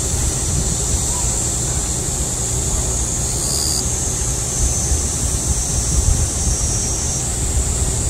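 Cicadas in full summer chorus: a loud, steady, high buzz. A low rumble of wind on the microphone runs underneath.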